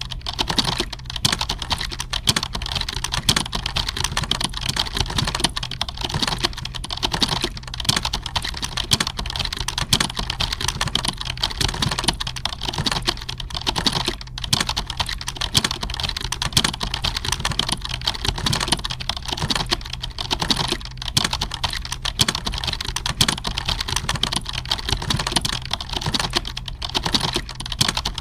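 Computer keyboard typing: a dense, unbroken stream of key clicks at a steady pace.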